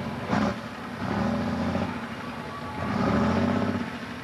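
John Deere pulling tractor's diesel engine running hard under load, its note swelling twice.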